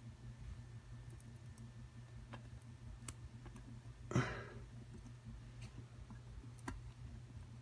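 Small, faint metal clicks and taps from handling the pins and parts of a gutted Abus 72/40 padlock, with one louder clink about four seconds in.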